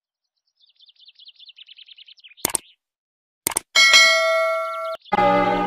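Subscribe-button animation sound effects: a rapid run of faint high chirps, then a mouse click. About a second later a second click is followed by a notification-bell ding that rings for about a second. Music starts just before the end.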